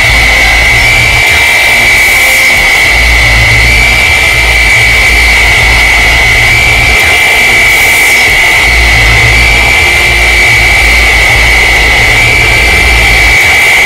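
Loud, harsh electronic noise: a steady high-pitched whistle-like tone over a hiss, with a deep hum that swells and drops off irregularly every second or two.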